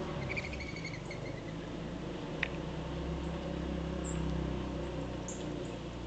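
Outdoor ambience with a steady low hum. A quick rattling run of short bird notes comes in the first second, then a single sharp tap about two and a half seconds in, and two faint high chirps later.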